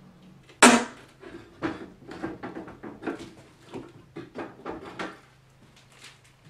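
Wooden parts of a double-hung sash window being handled and worked loose: a sharp crack about half a second in, then irregular wooden knocks and clatter for about four seconds.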